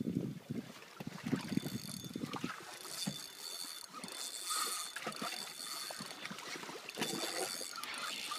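Water slapping against a small boat's hull, with scattered knocks and handling thumps. A faint high whine comes and goes through the second half.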